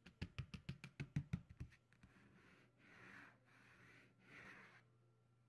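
A quick run of about ten light taps, roughly five a second, over the first two seconds. Then come two soft rustling noises, about three and four and a half seconds in.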